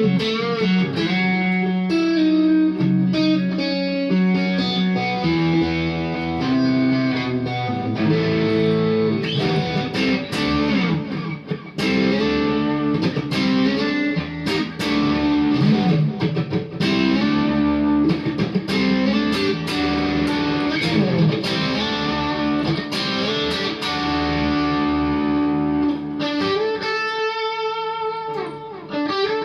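Kogai Tele 72 custom electric guitar played through a Randall RG50TC valve amp: an improvised lead line of picked single notes and string bends. About 27 seconds in it settles on a held note with vibrato.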